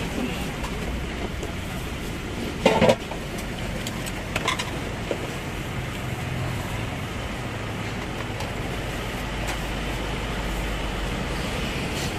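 Steady rumble of street traffic, with a short sharp handling noise about three seconds in and a smaller one a second and a half later.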